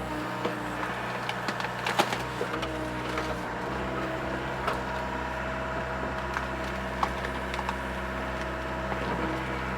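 Mini excavator's engine and hydraulics running under load, with repeated sharp cracks and snaps of tree roots breaking as a stump is wrenched out of the ground. The loudest snaps come about two seconds in and again about seven seconds in.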